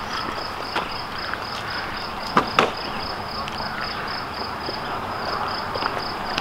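An insect chirping in a steady rhythm, about five high pulses a second, over a steady outdoor background hiss. Two sharp clicks stand out about two and a half seconds in.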